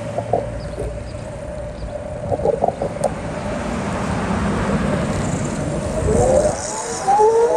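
City street traffic: a vehicle passes, its noise swelling about halfway through, followed near the end by a rising whine as another vehicle pulls away.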